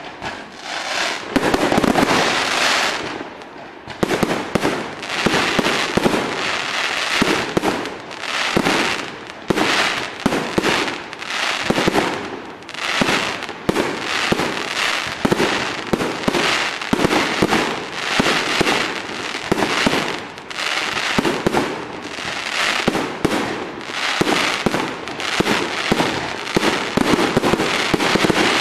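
Fireworks going off in a dense, continuous barrage: many overlapping bangs and crackles with hardly a pause, swelling and easing every second or two.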